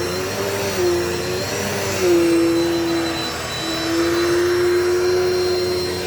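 Dirt Devil Multi-Surface vacuum cleaner running, a steady motor whine with rushing air whose pitch shifts slightly a few times as it is worked over the floor.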